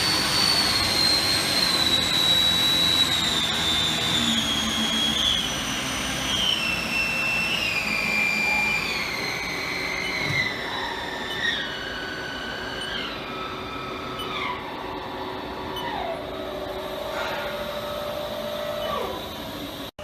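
Spindle of a Haas EC-1600YZT horizontal machining center whining as it slows, its pitch falling first smoothly and then in a series of distinct steps as the spindle speed is stepped down, over a steady hiss.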